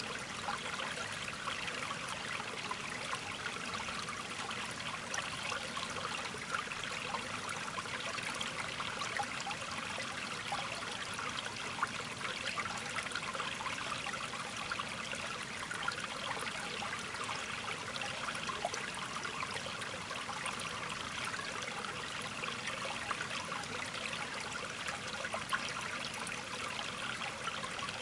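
Steady trickling, running water, like a small stream or fountain, going on without a break.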